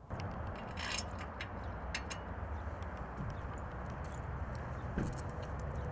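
A few short metal clicks and clinks as a bow-guard centre post and its bolts are handled on the trailer-mounted bracket, over a steady low background rumble.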